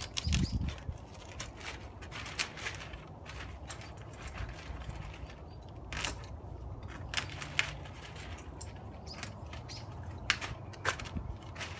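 Utility knife cutting synthetic house wrap, with the plastic sheet crinkling and giving off scattered sharp snaps and clicks as it is trimmed and handled.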